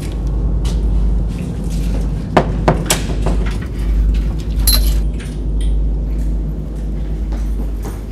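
Knocks and clatter of double doors being pushed open, with a metallic clink nearly five seconds in, over a steady low rumble.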